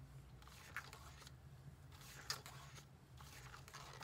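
Near silence with a few faint, brief rustles of photo cards and paper being handled, twice standing out a little louder.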